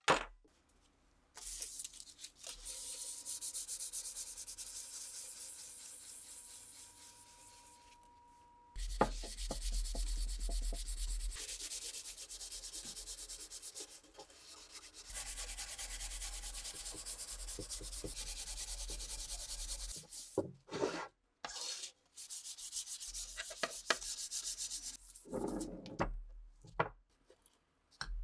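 Wooden rifle stock being hand-sanded with sandpaper: steady scratchy rubbing in three long stretches, then shorter separate bursts of rubbing and handling near the end.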